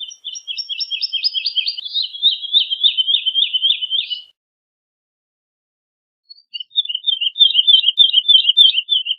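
Woodlark singing: a phrase of rapid repeated liquid notes that slides down in pitch and stops a little after four seconds in, then after a pause of about two seconds a second phrase of quick repeated notes begins.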